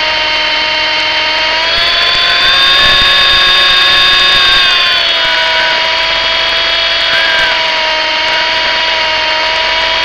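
MJX F45 radio-controlled helicopter's electric motor and gears whining steadily, heard close up from on board. The pitch rises about two seconds in, holds, and falls back about halfway through as the motor speeds up and then slows.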